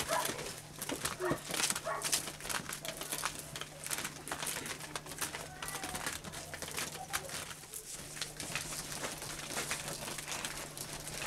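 Dried maize cobs being shelled by hand: kernels rubbed and twisted off the cobs in a dense run of small clicks and rattles.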